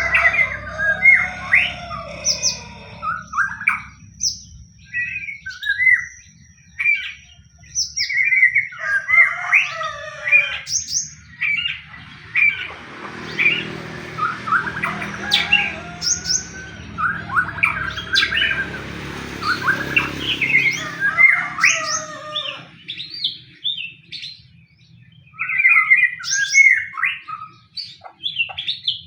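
White-rumped shama (murai batu) singing a fast, varied fighting-mode song of whistles, chirps and harsh notes in bursts with short pauses. A steady hiss sits behind the song through the middle stretch.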